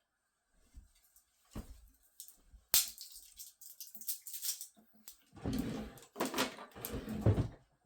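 Hands handling small hard plastic objects: a sharp click about three seconds in, then scraping, rattling and repeated knocks and clicks, busiest near the end.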